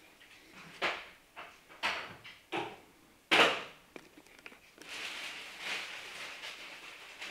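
Masking tape being handled on a plastic trim piece: a few short rips, the loudest a little over three seconds in, then a stretch of rustling as the tape is pressed and worked by hand.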